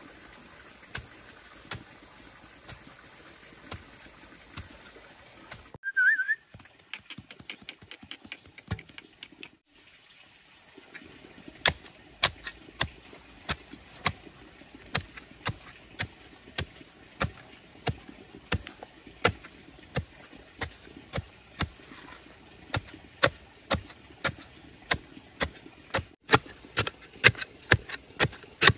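A blade chopping bamboo in repeated sharp strikes, about one and a half a second, coming faster and harder near the end. A steady high insect drone runs behind, with a single short bird chirp about six seconds in.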